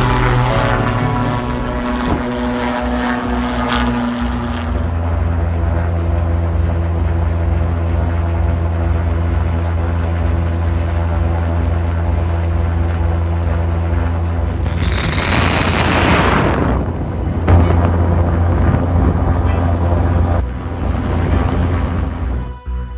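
Propeller engines droning steadily: first an airship's engines heard from below as it passes low overhead, then a steadier low hum as from inside the cabin. A loud rushing noise swells for about two seconds past the middle.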